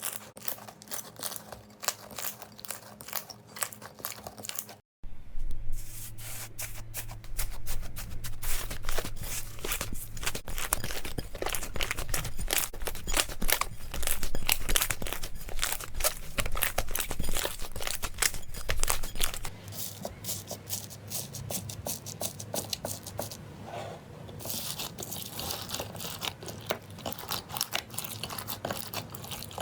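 Slime being handled close to the microphone: a dense, fast run of small crackling pops and clicks. It cuts out briefly about five seconds in, then resumes with a different texture.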